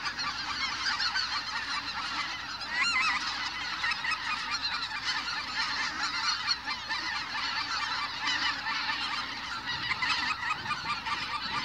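A dense, continuous chorus of many geese calling at once, countless overlapping honks and yelps with no break, from large flocks flying overhead.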